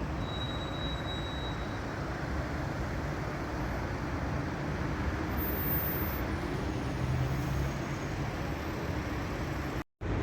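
Steady low rumble of vehicle noise with no distinct events, broken off by a brief cut to silence near the end.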